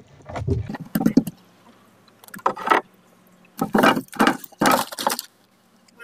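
Drift gillnet being hauled by hand into a small boat: a string of about five irregular noisy bursts of handling sound, over a faint steady low hum.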